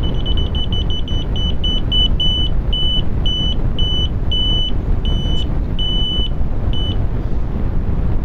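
Electronic refrigerant leak detector sounding a high-pitched beep. It starts fast and nearly continuous at the air conditioner's flare-nut service valves, then slows to spaced, longer beeps and stops about seven seconds in. The fast beeping signals refrigerant leaking at the fitting; the slowing means less refrigerant is reaching the probe.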